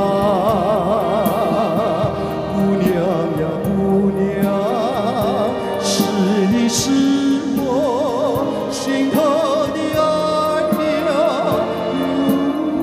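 Man singing a Mandarin pop ballad with a live band, the melody carried with wide vibrato over a steady beat, with cymbal crashes a little past the middle.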